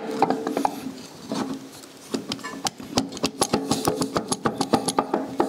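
Rebuilt starter motor being twisted and pushed into its mounting hole on the engine: a quick run of metal clicks and knocks, getting denser about two seconds in, over a steady low hum.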